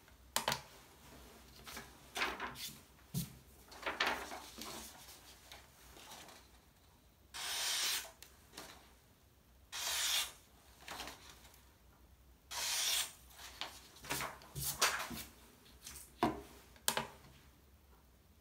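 A steel kitchen knife slicing through a sheet of A4 paper three times, each cut a hissing rasp just under a second long, to dull the edge for a sharpness test. Paper rustles and light knocks of the knife and paper being handled come before and after the cuts.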